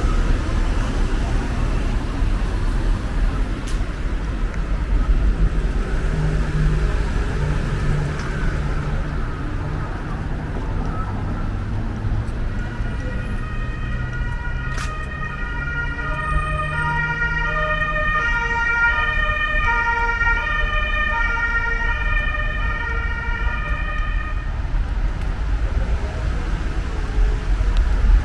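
Two-tone emergency vehicle siren alternating between a high and a low pitch for about twelve seconds from halfway in, over a steady rumble of street traffic.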